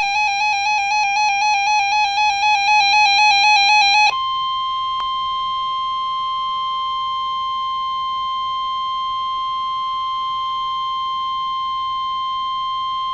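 NOAA Weather Radio alert: a rapid pulsing electronic beep for about four seconds, then the steady 1050 Hz warning alarm tone held unbroken for about nine seconds, the signal that precedes a watch or warning broadcast.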